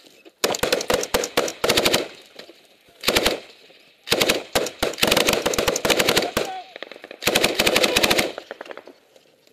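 C6 belt-fed 7.62 mm general-purpose machine gun fired close by in four bursts of rapid automatic fire. The longest burst lasts about two and a half seconds, and there are short pauses between the bursts.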